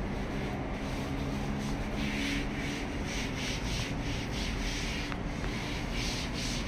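A cloth wiping the top of a washing machine, rubbing in a quick series of scraping strokes, several a second, over a steady low hum.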